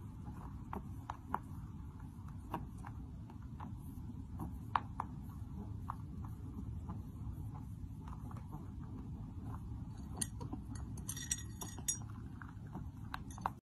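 Small metal pail with a wire handle clinking and rattling in a rabbit's paws: scattered light metallic clicks, with a brief run of higher ringing clinks near the end, over a steady low background noise.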